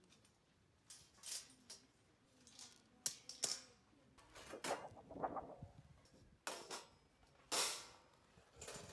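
Thin stainless steel parts of a take-apart fire pit clinking and scraping as they are lifted out and unpinned by gloved hands: a string of separate sharp clicks and metallic rattles.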